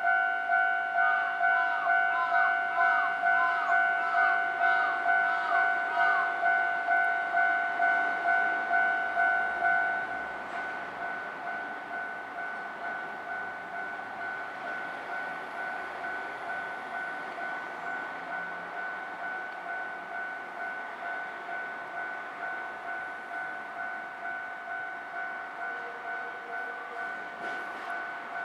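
Japanese level-crossing warning bell ringing in a fast, even two-tone pulse, about two rings a second. About ten seconds in it drops sharply in volume and keeps ringing more quietly.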